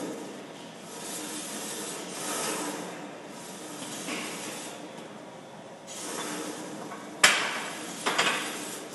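Loaded steel barbell clanking into the hooks of a squat rack, a sharp metal bang about seven seconds in followed by a smaller rattle of the plates a second later, after several hissing breaths between back-squat reps.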